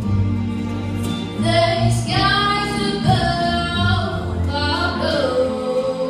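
A teenage girl singing solo into a microphone over an instrumental backing, amplified through the hall's sound system. Her sung line comes in about a second and a half in and ends on a long held note near the end.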